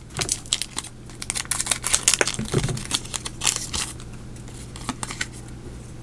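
Foil wrapper of a Japanese Pokémon card booster pack crinkling and being torn open, in many irregular sharp crackles. The crackling thins out in the last couple of seconds as the cards are handled.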